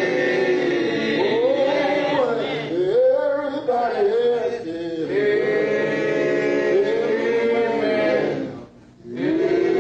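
Men's voices singing a slow hymn together in long, drawn-out held notes, breaking off briefly about nine seconds in before starting again.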